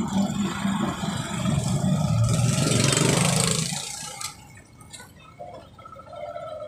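Traffic noise close by: a vehicle's engine and rushing noise swell, then drop away about four seconds in, leaving a faint steady hum.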